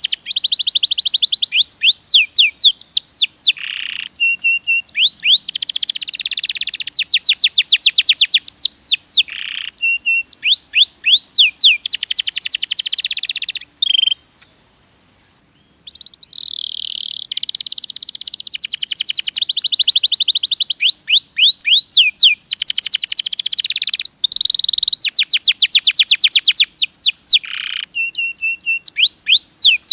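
Domestic canary singing a long song of fast, repeated trills, the phrases changing every second or two, with a break of about two seconds near the middle.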